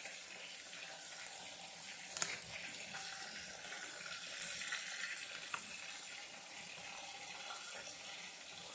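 Breaded shrimp deep-frying in hot oil in a pot: a steady sizzle with a few sharp pops and crackles, the loudest about two seconds in.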